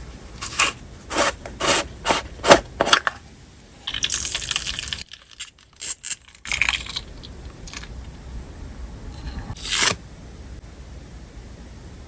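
Thick, glossy candle-style slime squeezed and stretched by hand, its surface film bursting with loud crackling pops as air gets worked in. About six sharp crackles come first, then a longer stretch of dense crackling, a few more, and after a pause one last burst before only a faint hiss remains.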